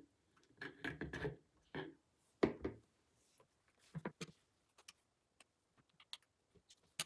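LEGO plastic parts and a rubber-tyred LEGO wheel being handled and fitted together on a wooden tabletop: a few short bouts of rubbing and knocking, then scattered small plastic clicks from about four seconds in.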